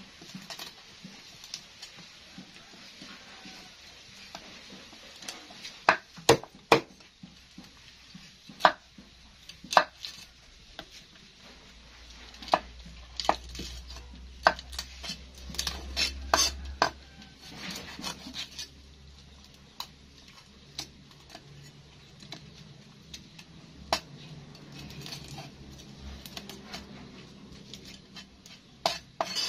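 A knife scraping and knocking on a round wooden chopping block as small whole fish are cleaned and cut: irregular sharp knocks, a few of them loud, with quieter scraping between.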